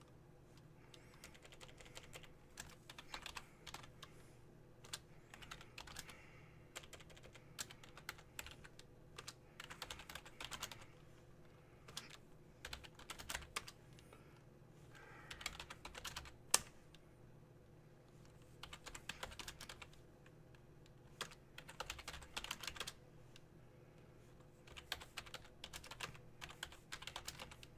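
Quiet computer keyboard typing in short bursts with pauses between, and one sharper click about sixteen seconds in, over a faint steady hum.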